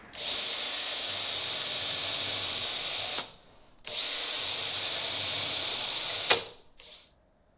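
Power drill mounted in a drill guide, running and boring into plywood in two stretches of about three and two and a half seconds with a short break between, ending in a sharp click.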